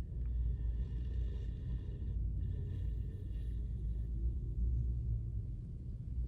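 Dalmatian dog snoring in its sleep, low and deep, in a way that is much like a man's snoring.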